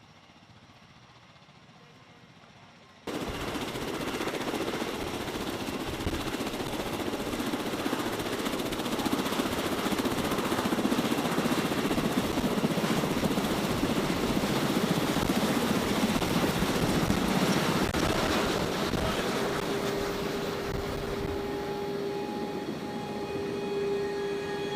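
MV-22 Osprey tiltrotor running close by: a loud, dense rotor and engine noise with rapid low thumping cuts in abruptly about three seconds in. A steady whine rises out of it near the end.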